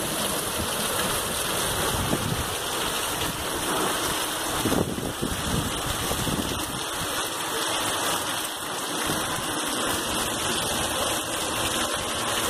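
Heavy hurricane rain and wind: a steady, dense rushing noise of rain pouring down.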